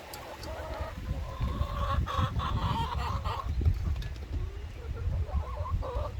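Several chickens clucking, with short scattered calls overlapping, busiest in the middle and again near the end, over a steady low rumble.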